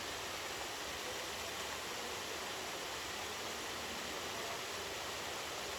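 Waterfall's water rushing, a steady, even hiss.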